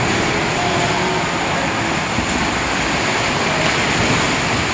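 Swimmers splashing as they kick and stroke down the lanes, a steady wash of water noise echoing in an indoor pool hall.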